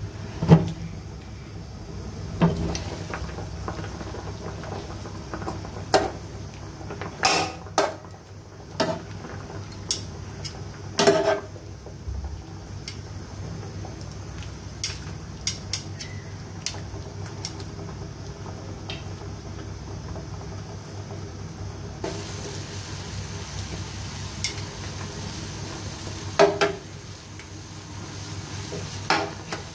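Water boiling steadily in a frying pan of meat, with metal tongs clinking and knocking against the pan as the pieces are turned. A loud knock just after the start comes as the glass pan lid is lifted.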